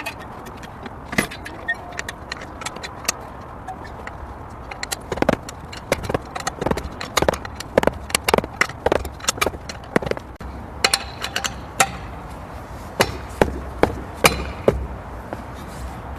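Metal tools and small parts clinking and clattering as they are handled: many sharp, irregular clicks, a few at a time, busiest in the middle and latter part.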